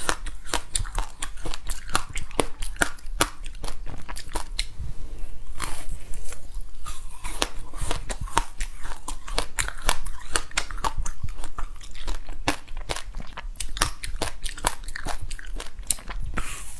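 Close-up mouth sounds of someone biting and chewing a passion fruit bar coated in black and white sesame seeds. Dense, crisp crunches and crackles follow one another without a break.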